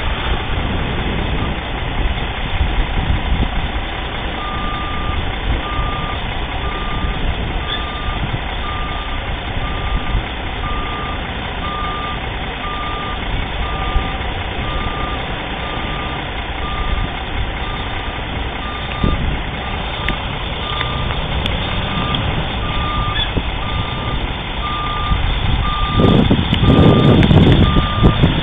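Vehicle backup alarm beeping about once a second, one steady tone, over steady road noise; near the end a louder low rumble comes up.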